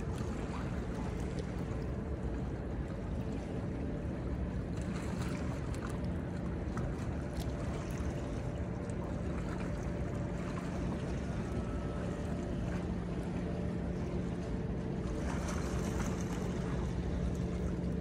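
Seaside ambience of wind and water against a concrete breakwater, with a steady low engine hum.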